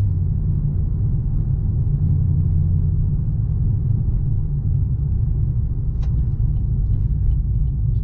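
In-cabin drive noise of a 2010 Camaro SS under way: the 6.2-litre V8's low drone mixed with road rumble. The engine note drops slightly at the start and rises again about two seconds in. A single short click comes about six seconds in.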